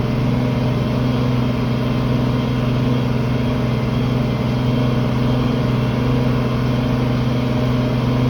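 International Harvester 1566 tractor's turbocharged six-cylinder diesel running steadily under load, pulling a field cultivator.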